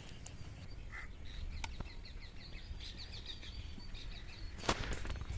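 Small birds chirping in quick runs of short high notes, over a low steady outdoor rumble, with a brief sharp clatter near the end.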